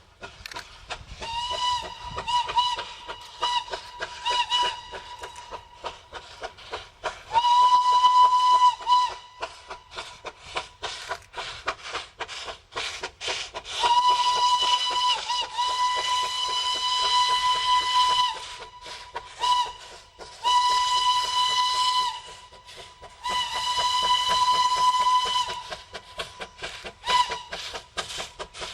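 Steam locomotive whistling repeatedly while working, its exhaust beating steadily at about three to four chuffs a second. The whistle gives a few short toots, then a longer blast, and from about halfway through several long blasts broken by brief toots.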